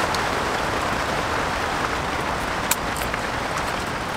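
Steady rain falling on a polycotton canvas tent, heard from inside. One sharp click stands out a little after the middle.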